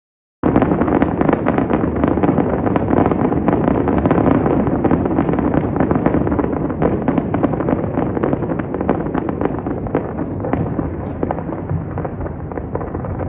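Dense, continuous barrage of fireworks: many overlapping bangs and crackles, starting abruptly about half a second in.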